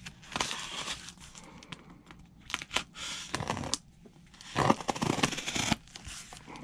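Folding knife slitting clear packing tape along the seams of a cardboard box, the tape tearing and the cardboard rustling as it is handled, in three spells of scraping and tearing.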